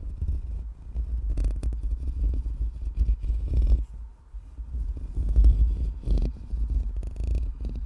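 Aggressive scratching and brushing directly on a microphone: deep rumbling handling noise with irregular scratchy rustles, dipping briefly quieter about four seconds in.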